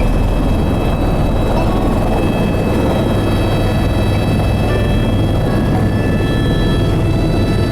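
Helicopter running steadily in flight, a loud even low drone with a thin high-pitched whine above it.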